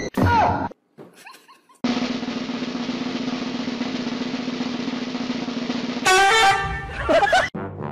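A snare drum roll runs steadily for about four seconds. It ends suddenly at about six seconds in, as a loud pitched cry or shriek with a bending tone breaks in, coinciding with toast popping up out of a toaster. A short loud gliding sound is heard at the very start.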